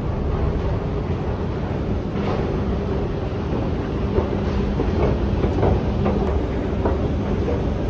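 Steady low rumble of a moving public-transport vehicle, with a constant hum and scattered light clicks and knocks.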